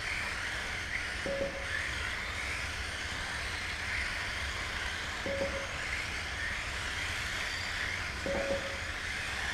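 Mini-Z electric RC cars racing, their small motors whining with a pitch that rises and falls as they speed up and slow down. Three short beeps come through, about a second in, about five seconds in and near the end, typical of a lap-counting system as cars cross the line.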